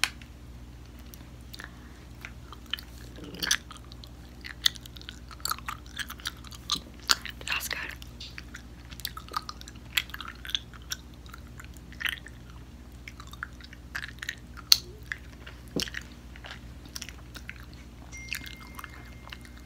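Chewing gummy fruit snacks: irregular sticky mouth clicks and smacks as the soft candy is bitten and worked between the teeth.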